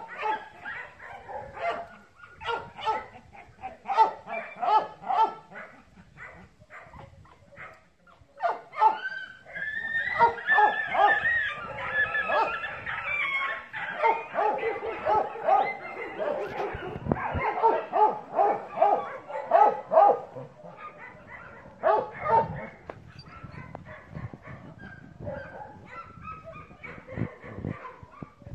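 A dog barking and yipping in quick runs of short calls, with a stretch of higher, whining cries about a third of the way in.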